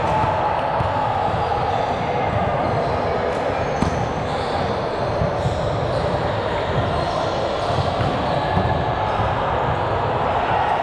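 Echoing sound of a ball game in a large gym: a steady wash of players' voices and chatter, with a ball knocking now and then, once clearly about four seconds in.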